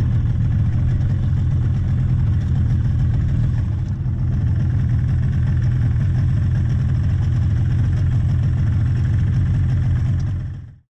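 Outboard motor of an inflatable boat idling with a steady low rumble, which fades out just before the end.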